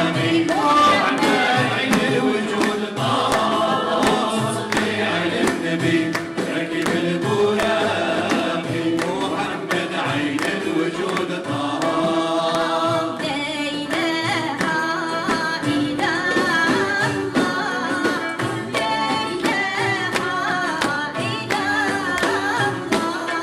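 Traditional Moroccan orchestral music: voices singing together over ouds and bowed strings, with a frame drum with metal jingles beating a steady rhythm.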